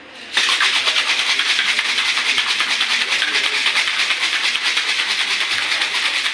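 Ice rattling rapidly in a cocktail shaker, shaken hard in quick even strokes; it starts abruptly just after the beginning.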